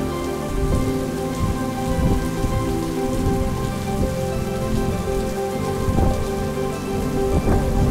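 Steady rain falling, with a low rumble underneath and a few held steady tones.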